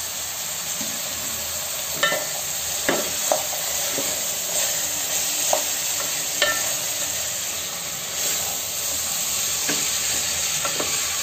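Freshly washed sangri (radish pods) sizzling steadily in hot oil in a metal pot. A wooden spoon stirs them, scraping and knocking against the pot several times.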